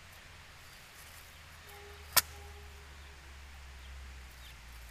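A single sharp snap about two seconds in, a parsley stem breaking as a fresh bunch is cleaned by hand, over a low steady rumble. A faint steady tone lasts about a second and a half around the snap.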